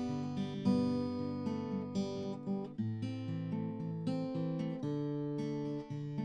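Acoustic guitar strumming chords, changing chord about three seconds in and again near five seconds.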